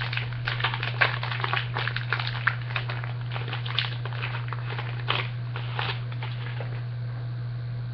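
Foil wrapper of a trading-card pack crinkling and crackling as it is pulled open by hand, in a run of quick crackles that thins out after about six seconds. A steady low hum lies under it.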